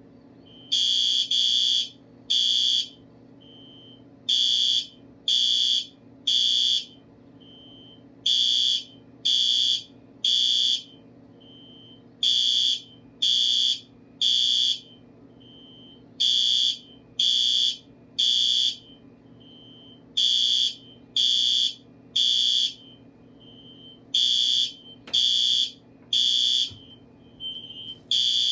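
Fire alarm horns sounding the temporal-three evacuation signal: three loud beeps, then a pause, repeating about every four seconds. A fainter single beep falls in each pause.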